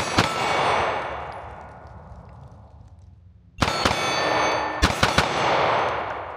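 Echo of a 9mm pistol shot dying away over the first few seconds; then shots from a CZ Shadow 2 Compact with in-line grenade barrel ports: one shot, then a quick string of shots about a second later, each with a long echo.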